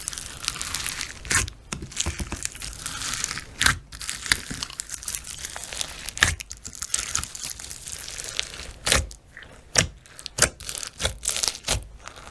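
Crinkling and tearing noises with sharp clicks at irregular intervals throughout.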